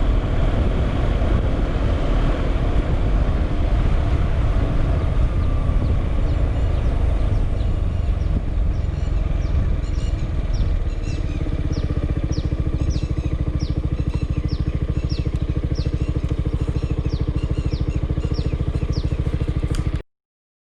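Yamaha XMAX scooter's single-cylinder engine heard onboard: riding along with wind rush, slowing about halfway through, then idling steadily at a standstill. The sound cuts off suddenly near the end.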